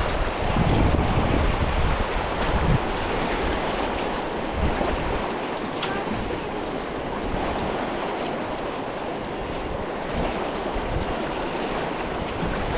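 Steady rushing of river current, with wind buffeting the microphone in the first few seconds.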